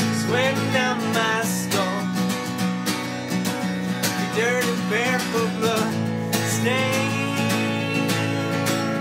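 Acoustic guitar strummed steadily in a folk song, with a voice singing short phrases over it about a second in and again near the middle.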